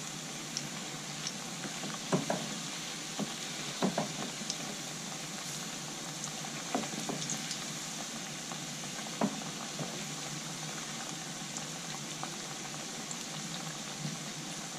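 Onion pakoras deep-frying in hot oil in a steel kadhai: a steady sizzle, with a few short clicks as a wooden spatula turns them over.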